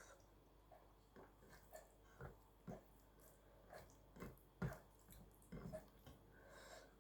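Faint chewing and lip smacks from eating rice and curry: irregular soft clicks and wet smacks, the sharpest a little past halfway.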